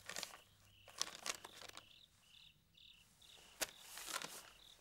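Paper rustling in short bursts as a letter and a book are handled, the sharpest crackle about three and a half seconds in. Crickets chirp in short regular pulses behind it.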